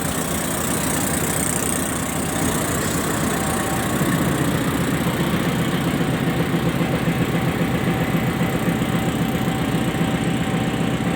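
Pakistan Railways RGE 20 diesel locomotive's engine idling with a strange noise, a fast, even knocking in its low rumble. About four seconds in the rumble grows louder and rougher.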